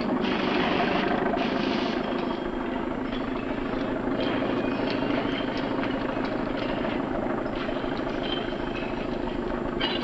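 Steady low mechanical rumble, like machinery running, with scattered knocks and clatter over it.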